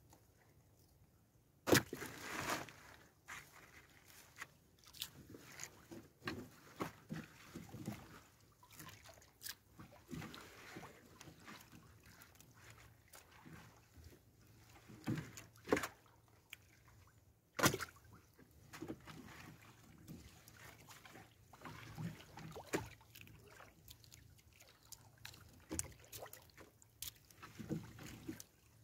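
Fishing net being hauled and handled aboard a small outrigger boat: irregular knocks and clicks against the hull with water sloshing and dripping. Two sharper knocks stand out, one about two seconds in and one a little past halfway.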